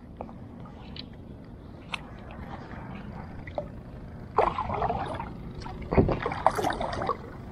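Fishing gear and kayak handling noise during a cast with a spinning rod and reel: a few light clicks, then two rustling, splashy bursts against the plastic kayak, the second opening with a thump about six seconds in.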